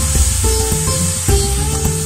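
Background music with a steady beat and bass line, its held notes stepping in pitch. Underneath it runs a faint sizzle of sliced onions frying in oil in a pan.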